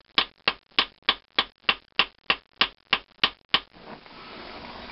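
Ball-peen hammer striking with its peen end, about three sharp blows a second, peening over the end of a heated 1018 steel valve stem held in a bench vise; about twelve blows, stopping about three and a half seconds in. A steady hiss of the oxy-acetylene torch flame heating the work follows.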